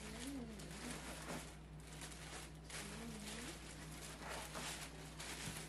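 Clear plastic bag around a new laptop crinkling and rustling as it is handled and slid out of its packaging. Two faint wavering voice-like sounds come near the start and about three seconds in, over a steady low electrical hum.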